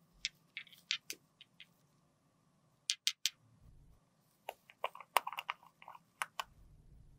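Fingertips in rubber finger cots tapping and handling small black plastic cosmetic jars: sharp, irregular clicks, three in quick succession about three seconds in and a denser cluster in the second half.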